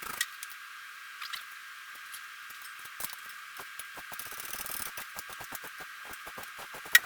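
Hand tools working on the water pump bolts of a Jeep XJ 4.0 engine: scattered metallic clicks, a run of quick clicks in the second half, and one sharp clink just before the end.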